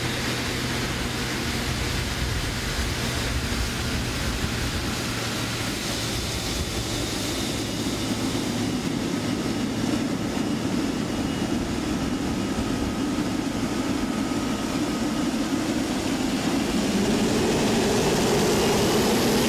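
Boeing 777F's GE90 turbofan engines running at taxi power as the freighter rolls past: a steady jet rush with a low hum and a faint whine, growing louder near the end as it comes closest.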